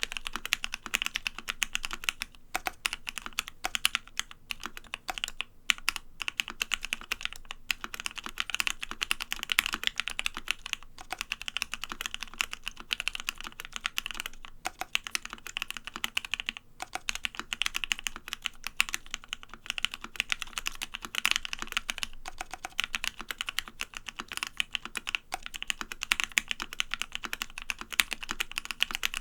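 Continuous fast typing on a Savage65 mechanical keyboard with lubed Gateron Ink Black linear switches, an FR4 plate and EnjoyPBT PBT keycaps. A dense stream of keystrokes is broken by short pauses every few seconds.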